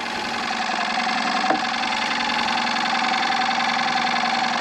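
A steady, unchanging mechanical hum like an idling engine, with one faint click about a second and a half in.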